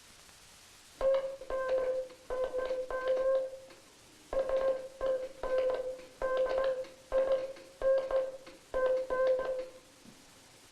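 Morse code sent on a telegraph hand key as a steady beeping tone. It comes in uneven clumps where the dits and dahs run together with hardly any spacing between them, the sign of a key whose contact gap is too narrow or whose spring is too loose.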